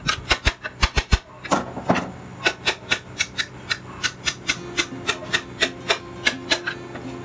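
A rapid series of sharp taps or knocks, roughly four or five a second, over a faint steady hum.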